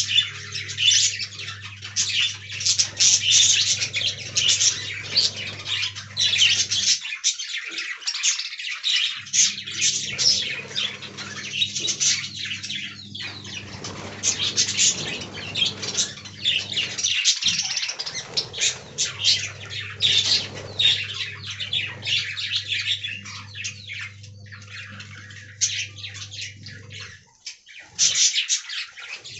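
Several budgerigars chattering and warbling with rapid chirps and squawks. Under them, a steady low hum cuts out twice.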